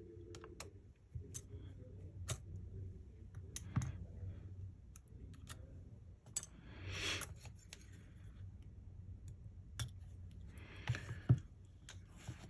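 Scattered small clicks and taps of precision repair tools working on the inside of an opened iPhone 12 Pro while its ear-speaker and Face ID screws and flex cable are removed, with a brief rustle about seven seconds in and another near the end.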